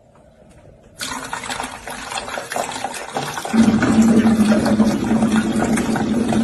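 Water running from a water cooler's cold-water tap, pressed open by a cat's paw. The flow starts about a second in and grows louder, and a steady low tone joins it about halfway through.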